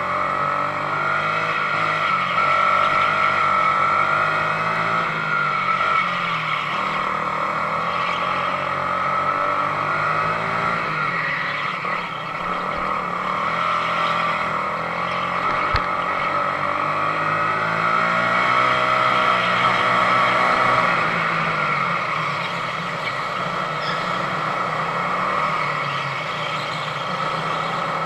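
Sodi RX250 rental go-kart engine running hard under race conditions, its pitch dropping and climbing again as it slows into corners and accelerates out. A single short knock about halfway through.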